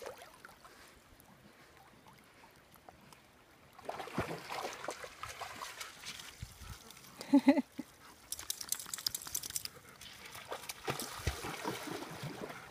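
River water splashing and sloshing around a swimming German Shepherd, starting about four seconds in after a quiet opening. A brief vocal sound cuts in a little past halfway, followed by a run of sharper splashes.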